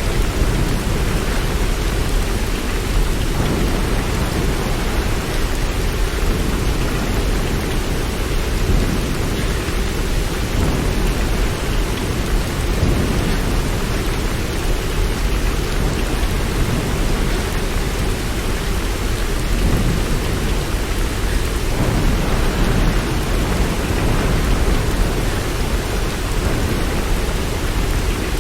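Steady, even rain with a constant deep rumble underneath, like distant rolling thunder; no single loud claps.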